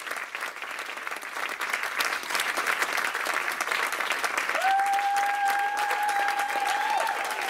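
Audience applauding, the clapping growing louder about two seconds in. About halfway through, someone whistles one long, steady note that bends up at its end.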